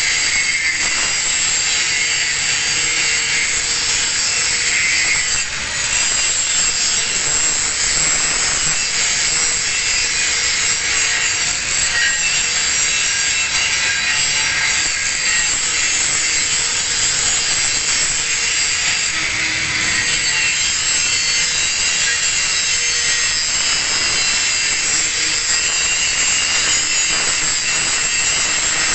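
Angle grinder grinding steadily against steel plate, cutting a single bevel edge. The grinding is continuous with a high, hissing edge and eases for a moment about five seconds in.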